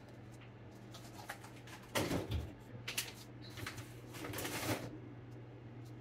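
Refrigerator freezer door opened and frozen groceries put in: a knock about two seconds in, a few clicks, then rustling of packaging, over a faint steady low hum.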